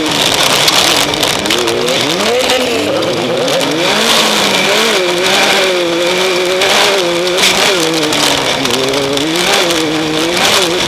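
Off-road race vehicle's engine running hard and revving up and down, its pitch rising and dipping every second or so as the driver works the throttle. Heavy wind and rough road noise run under it.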